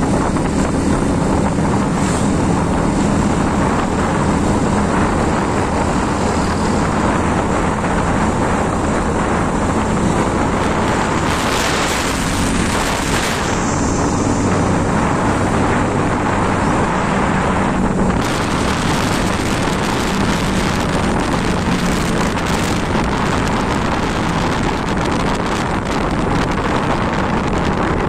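Motorcycle engine running at a steady cruise, heard from the bike while riding, with wind rushing over the microphone. The wind hiss swells for a couple of seconds about eleven seconds in and again from about eighteen seconds on.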